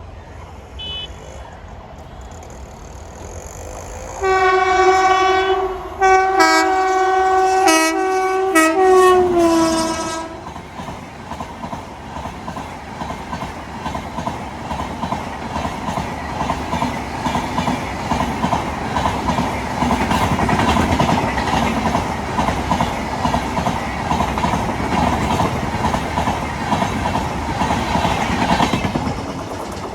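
Indian Railways express train's locomotive horn sounding about four seconds in, in several blasts with short breaks over about six seconds. The train then passes, with a steady rumble and rhythmic clatter of wheels over rail joints, loudest about two-thirds of the way through and dropping off near the end.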